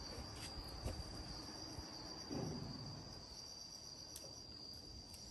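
Insects chirring in a steady, high-pitched drone, with a few faint knocks and a brief low sound about two and a half seconds in.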